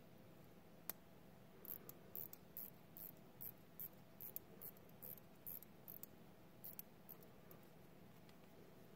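Small Soviet Luch ladies' watch being wound by its crown: one sharp click about a second in, then a run of faint, high ratchet clicks, about three a second, stopping near the end.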